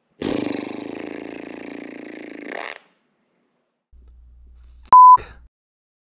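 A rasping scrape lasting about two and a half seconds, then a short, loud single-pitched beep near five seconds in.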